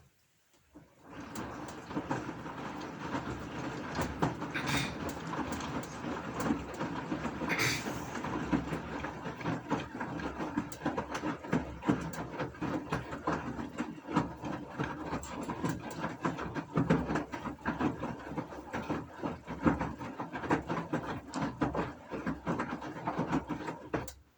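Gorenje washing machine running, with a dense, irregular clatter and rumble from the turning drum. It starts about a second in and stops suddenly near the end.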